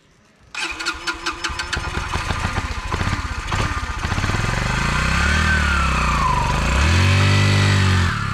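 Small 10-horsepower dirt-bike engine starting about half a second in, catching at once and running. It is then revved twice, the pitch rising and falling each time, as the heavily loaded bike pulls away.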